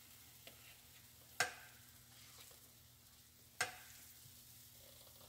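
A wire whisk knocking twice, sharp clicks about two seconds apart, as thick batter is scraped from a plastic bowl onto the hot plates of an electric waffle maker. Under it, a faint steady sizzle of batter on the heated plates.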